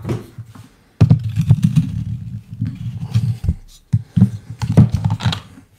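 Handling noise from an espresso portafilter and dosing funnel being worked on a wooden countertop right beside the microphone: a deep rumbling knock that starts suddenly about a second in and lasts a couple of seconds, then a few separate thumps.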